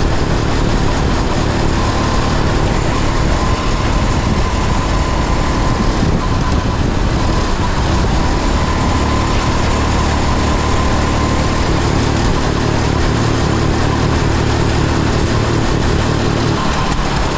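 Racing kart engine running steadily at speed, heard from a camera mounted on the kart, with a thin high whine that comes in about two seconds in and fades out around eleven seconds.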